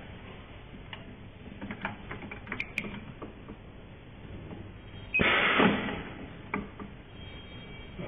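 Rotary knife cable stripping machine cycling on a thick cable. Light clicks and knocks come first, then about five seconds in a sudden loud mechanical burst lasts about a second and fades.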